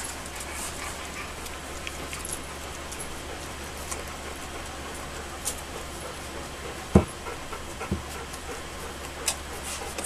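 Alaskan Malamute puppies, two and a half weeks old, nursing from their mother, with faint squeaks and small suckling and shuffling noises over a steady low hum. Two sharp thumps come about seven seconds in and again a second later.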